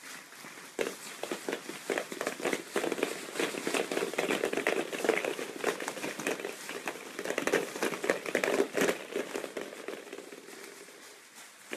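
Dozens of hollow plastic ball-pit balls tumbling onto a wooden floor and bouncing off each other and the pen, a dense clattering rattle that starts about a second in and thins out toward the end.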